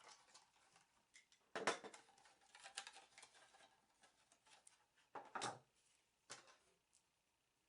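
Faint cutting and rustling as a makeup brush's packaging is opened with a product opener: a few short, irregular snips and crinkles, the loudest about one and a half seconds in.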